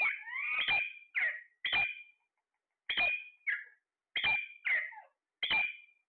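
Alexandrine parakeets squawking: about nine short, harsh, high calls in quick succession, some sliding down in pitch, with a brief pause midway.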